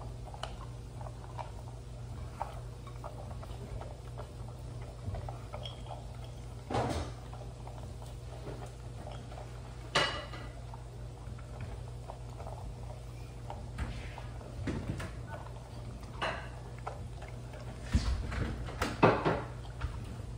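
Two basset hounds eating from stainless steel bowls: chewing and licking with scattered clinks of the metal bowls, a sharper clink about halfway through and a cluster of louder knocks near the end.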